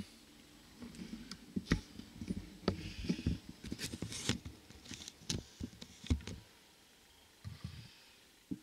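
Handling noises: a string of irregular light knocks, taps and rustles that thin out after about six seconds.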